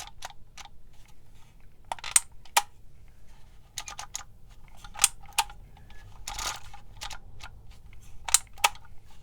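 Handheld embossing label maker clicking as its letter dial is turned, with a few sharper snaps as the handle is squeezed to press letters into the tape.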